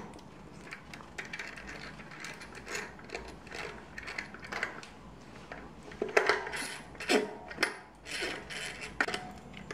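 Metal clicks and clinks of tools working on a Shimano 9-speed cassette as it is tightened onto the bicycle's rear hub. The clicking is irregular, with a louder run of clinks about six seconds in.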